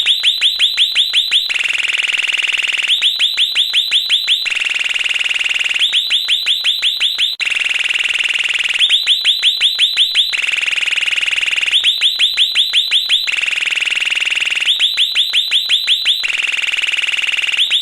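Electronic bird-sound doorbell chiming on repeat. Each cycle is a run of quick rising chirps, about six a second for a second and a half, followed by a steady high beep of the same length, and the pair repeats about every three seconds.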